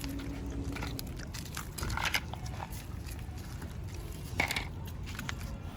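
Dogs eating, a run of small crunching and chewing clicks over a low background rumble, with two louder short sounds about two seconds in and again near four and a half seconds.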